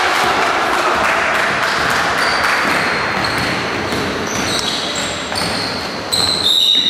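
Basketball being dribbled on a hardwood gym floor and sneakers squeaking during play, echoing in the hall. The loudest, longest high squeal comes about six seconds in.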